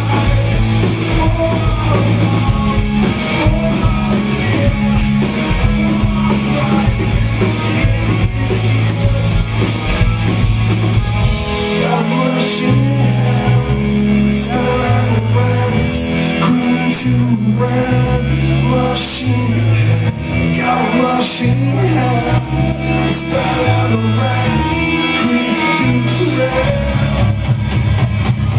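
Rock band playing live in a large hall, heard from within the crowd: distorted electric guitars, bass and drum kit, with singing. About twelve seconds in, the band moves into a new section with a choppier, stop-start bass line.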